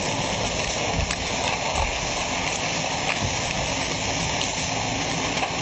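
A steady rushing noise with a couple of dull thuds, about one and two seconds in, as a truck tumbles and breaks up down a rocky mud slope.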